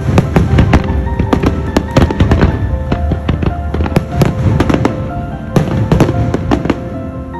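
Aerial fireworks going off in quick, overlapping bangs and crackles, with music playing underneath. The bangs thin out near the end.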